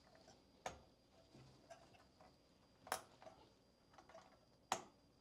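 Plastic push-pin fasteners of an Intel stock CPU cooler clicking as they are pressed into the motherboard holes: three sharp clicks about two seconds apart, with a few fainter ticks between. Each click is the sign of a pin locking into place.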